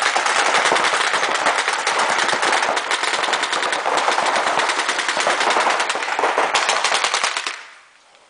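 Several paintball markers firing Reball reusable balls in rapid, overlapping strings of shots, echoing around a sports hall; the firing dies away about a second before the end.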